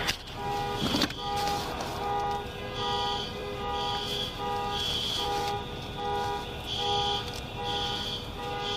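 Car alarms sounding after the explosion: one steady low tone with a beep repeating a little faster than once a second, and a higher tone coming and going over it.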